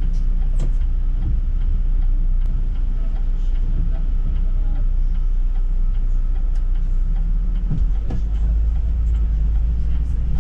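City bus on the move, heard from inside: a steady low engine and road rumble with scattered small rattles and clicks. The rumble grows heavier near the end.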